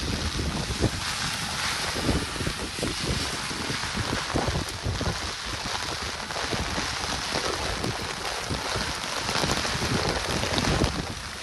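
Hurricane-force wind gusting across the microphone in irregular low buffets, over a steady hiss of rain.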